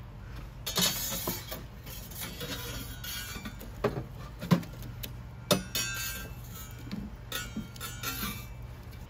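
Metal tongs and a long metal poker knocking, clinking and scraping against burning logs and the stone floor of a wood-fired oven as the fire is stoked. The sharp metallic knocks come irregularly, several ringing briefly.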